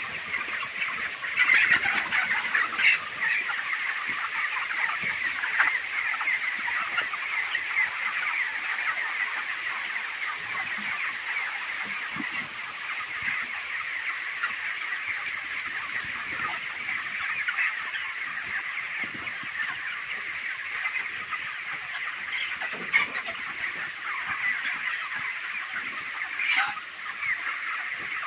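A large flock of four-week-old broiler chickens in a poultry shed: a steady, dense chatter of many overlapping clucks and peeps, with a few louder squawks standing out a couple of seconds in and twice near the end.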